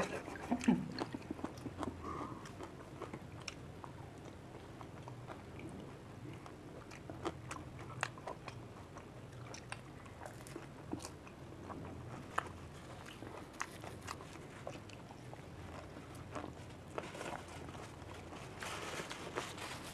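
Two people chewing fuchka, crisp hollow puri shells each stuffed with a whole green chili, with scattered sharp crunches over soft steady chewing.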